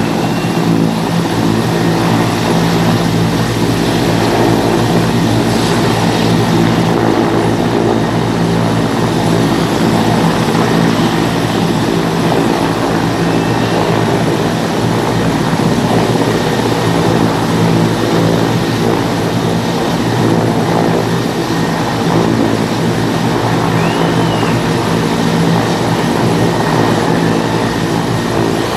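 Mil Mi-17 military helicopter hovering just above the ground, its turbine engines and main rotor making a steady, loud drone of several low tones over a rushing noise, as the downwash blows across the wet pitch.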